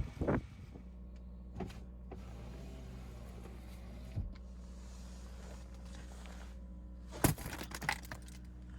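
A steady low mechanical hum, like a small motor running, with a few light knocks and two sharper impacts near the end.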